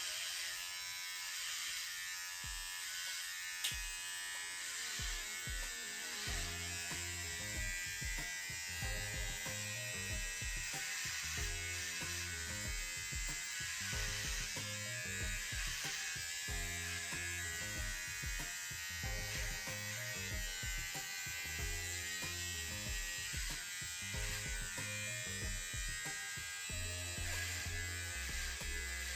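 Electric hair clipper buzzing steadily as it cuts through wig hair, over background music with a steady beat.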